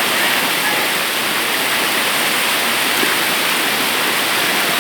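Heavy rain and rushing floodwater strong enough to sweep away a car, making a steady, loud wash of water noise.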